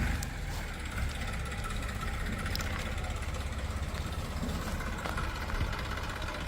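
Tractor engine idling steadily with an even, low, rapid pulse.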